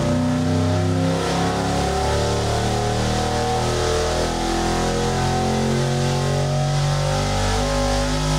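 GM LQ9 6.0-litre V8, fitted with a performance camshaft and a four-barrel carburettor, running hard under load through a dyno pull that sweeps from about 3,000 to 6,000 rpm.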